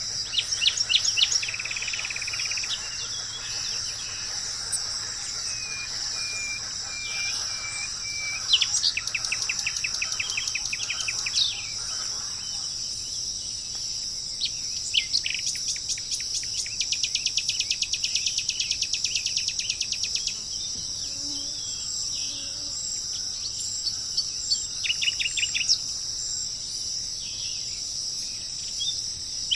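A steady, high insect chorus with wild birds calling over it: several runs of rapid repeated notes, like trills, and a few short steady whistled notes.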